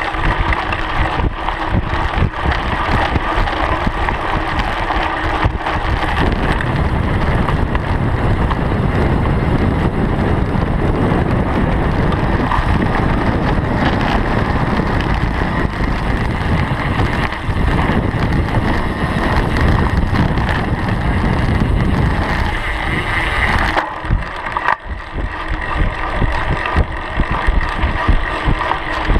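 Wind buffeting the microphone of a camera on a mountain bike riding over a gravel and dirt trail, with the tyres rolling on the gravel and the bike rattling over bumps. The low rumble of the wind is heaviest through the middle and eases off sharply near the end.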